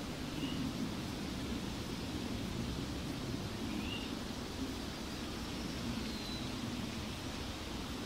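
Outdoor evening ambience: a steady low rumble and hiss, with a few faint, short bird chirps about half a second in, about four seconds in, and a thin falling whistle a little after six seconds.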